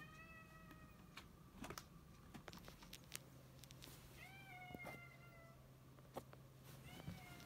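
Domestic cat meowing softly: three short meows, one at the start, one about four seconds in and one near the end, each dipping slightly in pitch as it ends. A few faint clicks between them.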